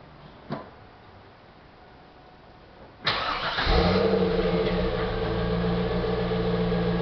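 Pontiac Firebird Formula's 5.7-litre LS1 V8 warm-started about three seconds in: a brief crank, then it catches with a quick flare and settles into a steady idle.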